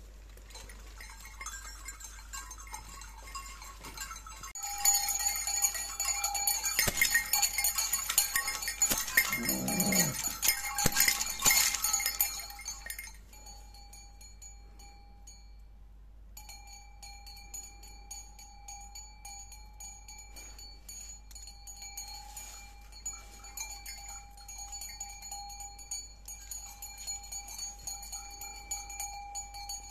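Bells on a Krampus costume's belt ringing and rattling as the wearer shakes and lunges. The shaking is loud from about five to thirteen seconds in, then the ringing goes on softer and steadier.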